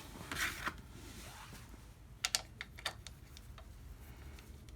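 Small parts and tools being handled on a workbench: a short rustle near the start, then a quick run of sharp light clicks and taps about two seconds in.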